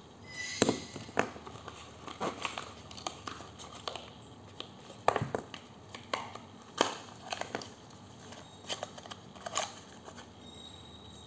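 Hands handling a wireless microphone kit's packaging and parts: irregular clicks, taps and rustles of the black plastic box, foam insert and small plastic units, with a coiled cable being pulled out near the end.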